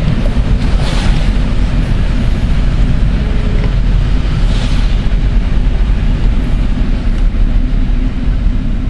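Steady low rumble of a car being driven, with a few brief hissing swells.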